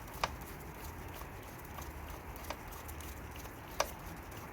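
Hand tools clicking against metal fittings while bolts are snugged down: three sharp separate clicks over a low steady background hum.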